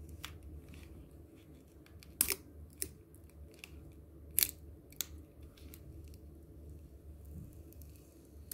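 Cracked tempered-glass screen protector being prised off a phone screen with a playing card: scattered sharp cracks and clicks as the broken glass gives way, the loudest about two and four and a half seconds in.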